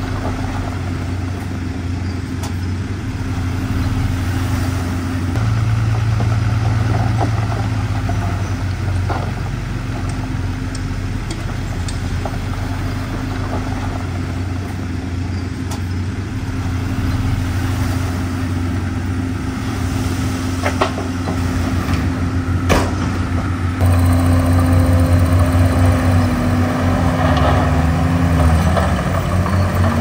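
Komatsu D51PX bulldozer's diesel engine running steadily, with a few sharp clanks. Near the end the engine note changes, dipping in pitch briefly and then recovering.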